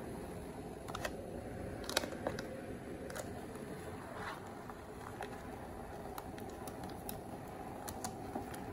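Metal tongs clicking and tapping lightly against a stainless-steel pot and a plastic instant-rice tub as the tub is pushed down into the water, a few scattered clicks over a steady low rushing background.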